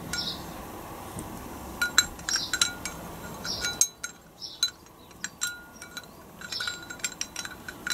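Steel synchro hub and sleeve from an R380 gearbox mainshaft being handled, its parts clinking and ringing lightly in a series of short metallic clicks. A low steady background hum stops abruptly about four seconds in.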